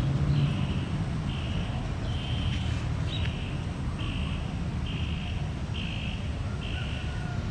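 Rhythmic chorus of calling animals: short, high buzzing calls repeating a little faster than once a second, over a steady low rumble.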